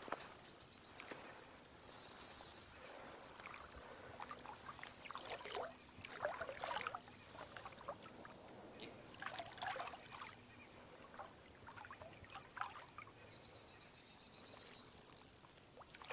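Faint river ambience: water trickling and lapping, with occasional light splashes.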